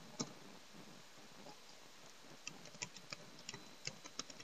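Computer keyboard keystrokes, faint, typing a word: one click just after the start, then a run of about ten quick taps over the second half.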